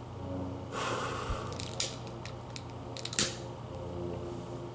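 Long-nosed utility lighter being worked: a string of sharp plastic clicks from its trigger, the loudest about two and three seconds in. Just before them, about a second in, comes a short breathy hiss.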